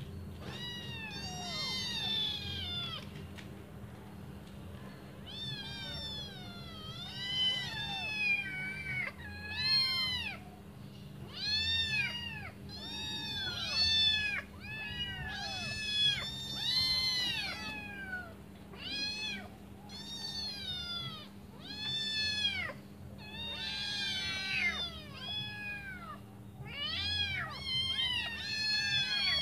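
A litter of five kittens meowing over and over, short high-pitched calls that rise and fall in pitch, often several overlapping: hungry kittens calling for their mother to come and feed them. A faint steady hum runs underneath.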